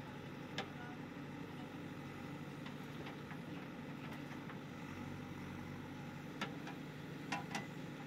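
JCB 3DX backhoe loader's diesel engine running steadily while the backhoe works a bucket of soil over a dump truck. A few sharp knocks cut through, one early and two close together near the end.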